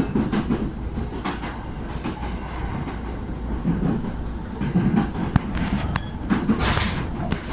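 Train running on the line: a steady low rumble with scattered sharp clicks of the wheels over the rails, and a short hiss about two thirds of the way through, heard from inside the carriage.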